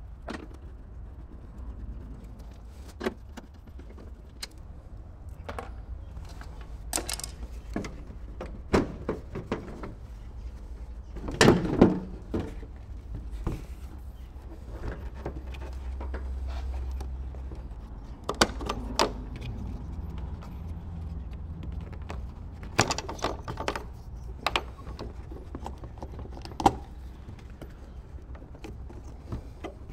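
Hand work on a car headlight: scattered metallic clinks from a T-handle socket wrench, with knocks and clicks of the plastic headlight unit and its connectors being worked loose. The loudest knocks come in a cluster about twelve seconds in, over a steady low rumble that swells for a few seconds in the middle.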